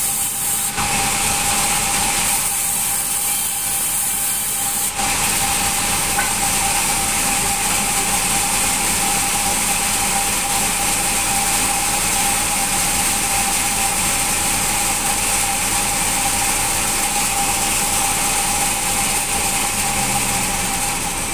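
Band sawmill running, its blade cutting through hard acacia wood with a steady whine and hiss; the blade is dull, not having been filed. The sound shifts abruptly about one second and five seconds in, then runs on evenly.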